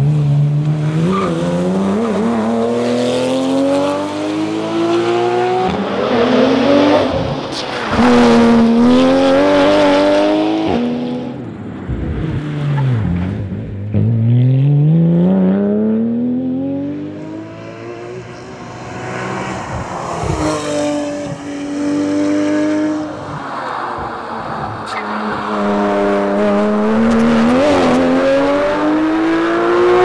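Porsche 911 GT3's naturally aspirated flat-six engine revving hard through the gears: the pitch climbs sharply, drops back at each upshift or lift-off and climbs again, over and over. About twelve seconds in it falls low under braking, then winds back up.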